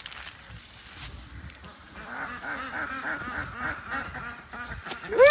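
A flock of ducks quacking, many short overlapping calls from about two seconds in, with a louder, drawn-out honking call at the very end. Light rustling of corn kernels in a sack in the first second.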